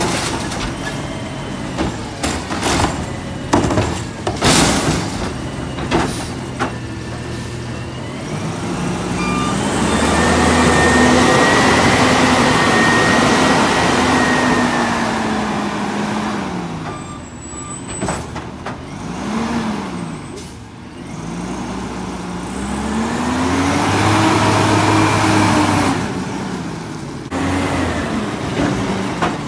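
Autocar garbage truck with a natural-gas (CNG) engine and a Bridgeport automated side-loader arm. For the first several seconds there are sharp clanks and knocks as the arm dumps a cart and sets it back down. Then the engine revs up as the truck pulls away and eases off, with air-brake hiss, and it revs and slows again near the end as it pulls up to the next cart.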